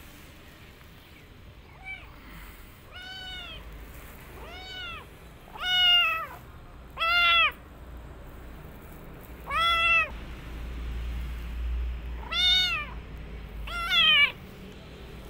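Young kitten meowing over and over: about eight high-pitched meows a second or two apart, each rising and then falling in pitch, the first one faint.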